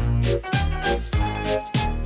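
Upbeat instrumental music with a steady beat of about two pulses a second over a bouncing bass line.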